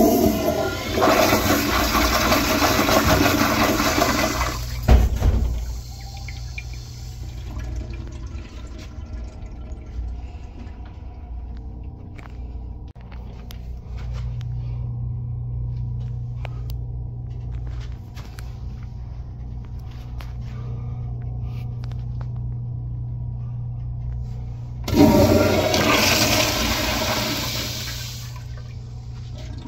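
Toilet with an Instanto flushometer valve flushing: a loud rush of water for about four seconds, a thump about five seconds in, then a quieter steady sound. About 25 seconds in, a second flush rushes for about three seconds.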